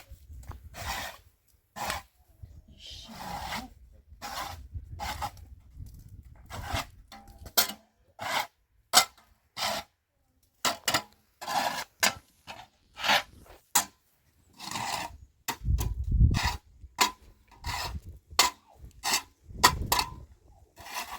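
Repeated short scraping strokes at an uneven pace, about one or two a second, with a low rumble under some of them.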